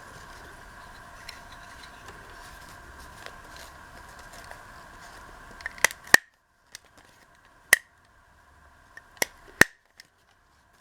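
Hand stapler clacking shut through stacked paper pages: five sharp clicks in the second half, two of them close together.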